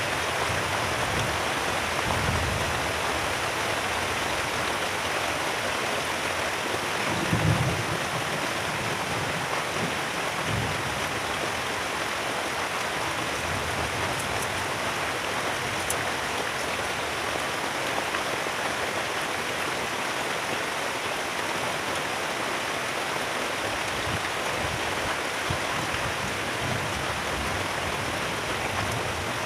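Heavy rain pouring steadily, a dense even hiss, with a few dull low thumps about two, seven and ten seconds in; the one about seven seconds in is the loudest.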